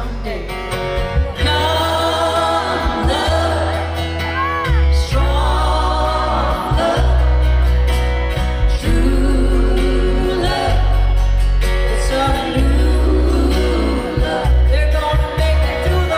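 Live country music: a woman singing lead over acoustic guitars and upright bass, with a heavy bass line underneath.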